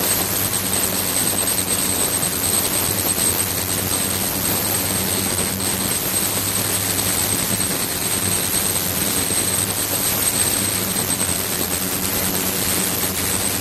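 Ultrasonic cleaning tank running steadily, with a constant hiss of agitated, cavitating water. Under it runs a low hum, and over it thin, steady high-pitched tones.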